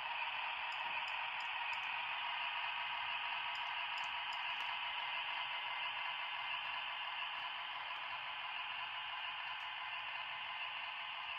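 HO scale model locomotive rolling along the track: a steady hiss with a few faint clicks.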